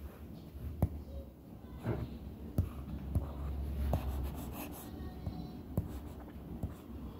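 Stylus tapping and sliding on a tablet screen as lines are erased, with a handful of sharp clicks at irregular intervals over a low hum.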